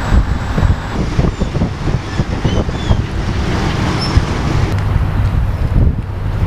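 Wind buffeting the microphone over a steady low rumble from a river cruise ship's engines as it manoeuvres to moor. A few faint, short high chirps come through in the first half.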